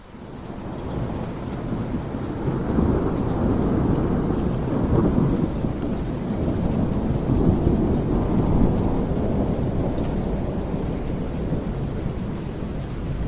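Heavy rain fading in, with a deep rolling rumble that swells through the middle and slowly eases.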